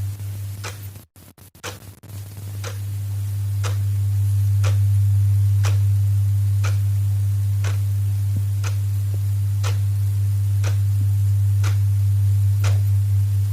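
Clock ticking once a second, each tick a sharp click, over a loud steady low hum. The sound briefly cuts out about a second in.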